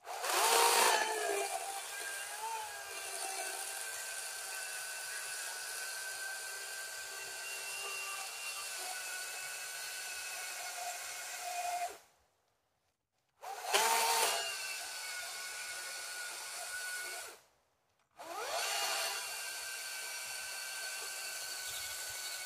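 Chainsaw cutting through a log, each stretch starting louder before settling into a steady run. The sound cuts off abruptly twice for about a second and comes back.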